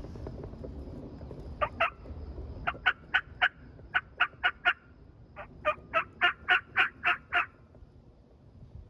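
Turkey yelps, loud and close: a pair of notes, then two runs of four, then a longer run of about eight, each note a short sharp yelp at about four a second.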